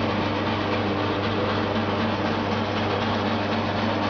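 Bottle-washing machine running steadily: a constant low electric hum under the whirr of rotating brushes scrubbing glass bottles, with a hiss of water spray.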